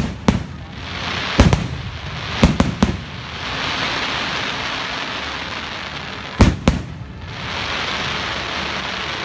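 Aerial fireworks shells bursting: sharp bangs in quick clusters, a pair right at the start, more about one and a half seconds in and between two and a half and three seconds in, then a pair about six and a half seconds in. A steady hiss fills the gaps between the clusters.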